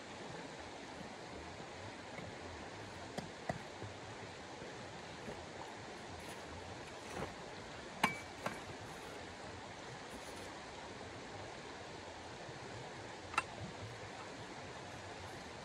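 Camping gear being handled and packed, giving a few light clinks and knocks over a steady rushing background noise. The sharpest clink comes about halfway through and rings briefly.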